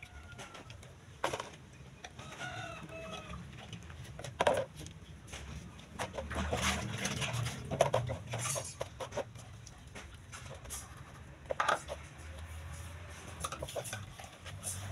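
Chickens clucking, with short wavering calls about two to three seconds in, and a few sharp knocks and clatters scattered through.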